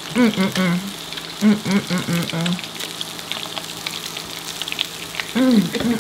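An electric hot pot and grill combo sizzling steadily with fine crackles. Short wordless voice sounds from someone eating come over it near the start and again near the end.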